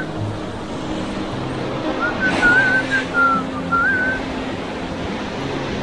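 A whistled tune in short, wavering phrases, over soft background music. There is a brief rush of noise about two and a half seconds in.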